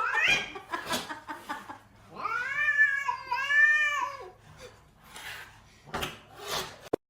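A cat yowling: a rising call at the start, then two long drawn-out meows back to back about two seconds in, with a few short knocks and rustles around them.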